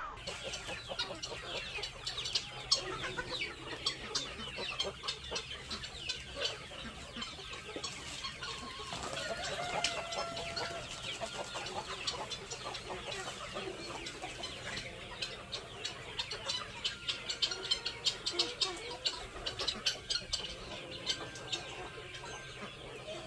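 A flock of chickens clucking, with a few longer drawn-out calls near the middle and many quick sharp ticks throughout, thickest in the second half.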